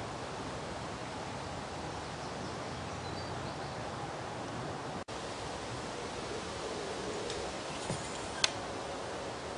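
Steady outdoor background hiss that drops out for an instant about five seconds in, with two sharp clicks near the end as an aluminium pole is handled at a tennis net.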